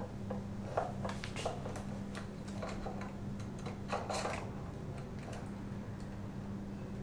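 Small clicks and taps of hands handling a DJI handheld gimbal and the tube light mounted on it while balancing it, a few sharp ticks scattered through, over a steady low hum.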